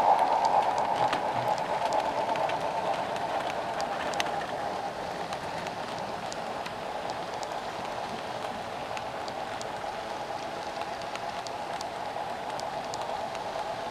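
Model railroad passenger cars rolling along the track: a steady whir of small metal wheels on rails with scattered light clicks. It is loudest at first, eases over the first few seconds, then holds steady.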